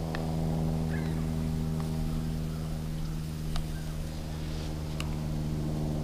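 MSR Pocket Rocket 2 gas canister stove burning steadily under a frying pan with a low, even hum, and a few light clicks of a utensil against the pan.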